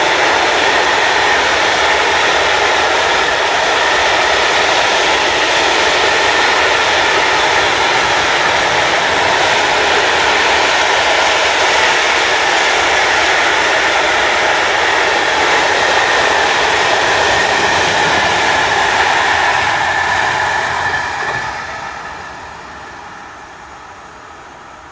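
A freight train of open coal wagons rolls past close by, with the loud, steady rolling noise of its steel wheels on the rails. The noise falls away about 21 seconds in as the last wagon passes and the train recedes.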